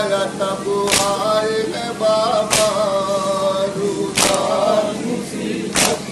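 Male voice singing a noha, a mourning lament, amplified through a microphone. Four sharp slaps fall in even time, about one every second and a half: mourners beating their chests (matam) to the rhythm.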